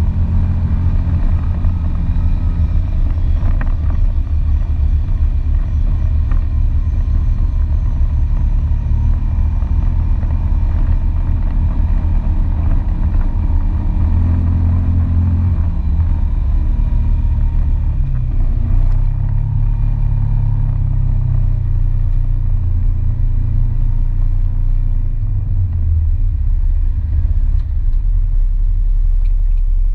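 ATV engine running as it drives along a dirt trail, heard close from the vehicle itself: a loud, low, steady drone whose pitch shifts up and down with the throttle.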